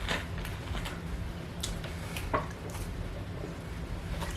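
Faint eating sounds: soft chewing with a couple of small clicks, about a second and a half and two seconds in.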